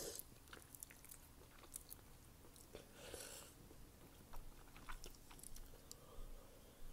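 A person slurping and chewing thick, chewy wide glass noodles, with a longer wet slurp about three seconds in and small mouth clicks between.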